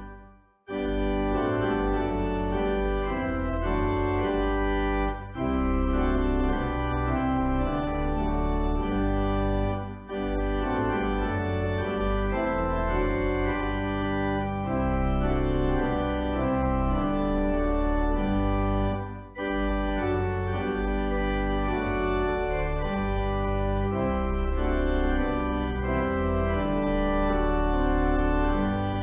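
Organ music: sustained chords that change every few seconds, breaking off briefly between phrases a few times.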